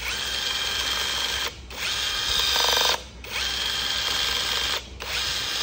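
K-max cordless blind rivet gun with a brushless motor, triggered in repeated cycles: three whirring runs of about a second and a half each with brief pauses between, and a fourth starting near the end. The second run ends in a short rattle.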